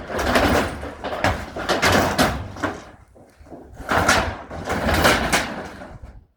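Repeated banging, knocking and scraping as barn boards and sheet metal are torn loose and pulled apart. It comes in two loud spells, one at the start and one about four seconds in, and dies away just before the end.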